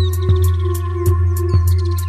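Instrumental music of a rap track: a drum beat with quick high ticks about four a second and regular kick thumps, over a held bass note and sustained tones.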